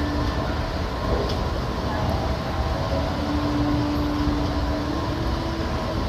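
Escalators running: a steady mechanical hum and low rumble, with faint steady tones drifting in and out.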